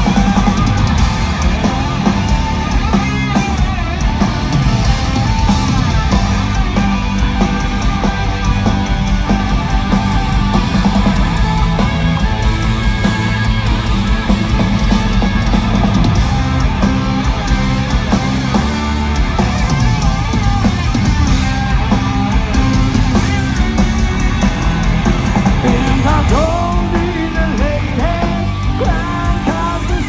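Rock band playing live and loud through an arena sound system, heard from within the crowd: amplified electric guitar and drums.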